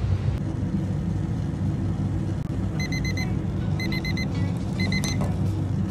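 Digital kitchen timer beeping: three quick bursts of four high beeps, about a second apart, over a steady low rumble.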